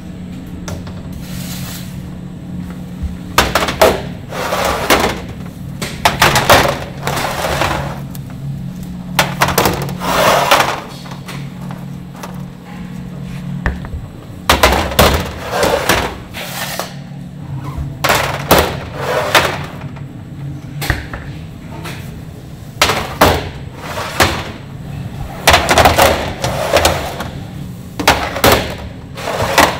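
Machinery on a roll cake production line: a steady hum under irregular knocks and clattering from the work, coming in clusters every few seconds.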